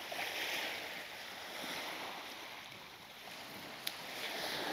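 Small waves washing on the shore with wind: a steady hiss that swells twice, with a single sharp click about four seconds in.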